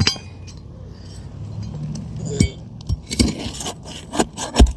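Metal clinks and scraping from a hand tool working under asphalt shingles to pry out roofing nails: a single sharp click at the start, a few scattered clicks, then a busy run of clinks and scrapes over the last second and a half.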